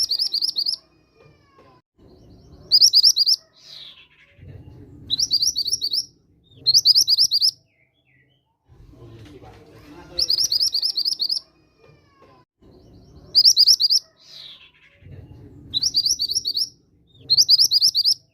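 Mantenan gunung song: short, fast high-pitched trills of rapidly repeated notes, about seven phrases, each under a second, separated by brief pauses, in a repeating pattern played as a lure call.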